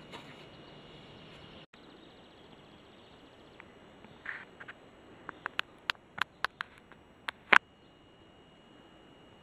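A run of about ten sharp clicks over two and a half seconds, the last the loudest, over a faint steady background.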